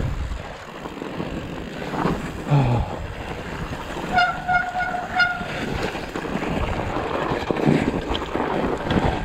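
Fat bike rolling over packed snow, with a steady rush of tyre noise and wind on the microphone. About four seconds in, the disc brake squeals, a high wavering tone held for about a second.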